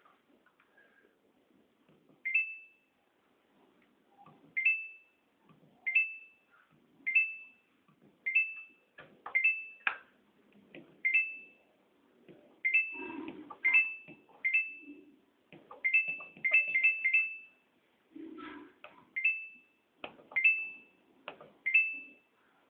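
Samsung WF448AAP washing machine's control panel beeping as its buttons are pressed: about twenty short electronic beeps, each starting with a click, about a second apart at first and in quicker runs in the middle.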